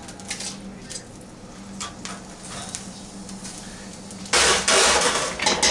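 Roasted duck carcass pieces handled with metal tongs into a stainless steel stockpot: light knocks and clinks over a low steady hum. About four seconds in, a loud rushing noise lasts about a second.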